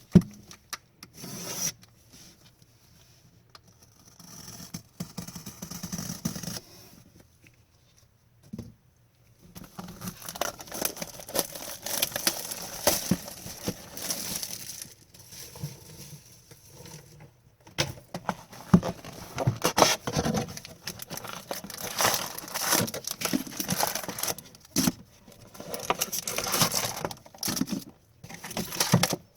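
A hobby box of hockey trading cards being torn open: cardboard and pack wrappers tearing and crinkling, with cards shuffled in hand. A sharp click right at the start, scattered rustles at first, then steady busy crinkling and rustling from about a third of the way in.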